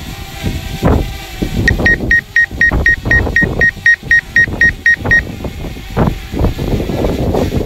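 A rapid train of high electronic warning beeps, about four a second, from a drone's remote controller. The beeps start about two seconds in and stop about three and a half seconds later, over gusty low rumbling wind noise on the microphone.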